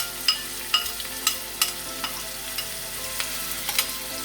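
Chopped onions sizzling in olive oil in a frying pan while being stirred, the utensil clinking against the pan about eight times with a short ring.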